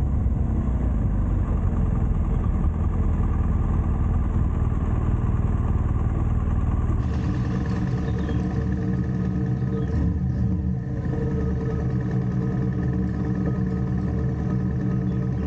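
BMW R1200GS flat-twin motorcycle engine running steadily under way, with road rumble. Its tone changes about halfway through, and there is a brief dip in level a few seconds later.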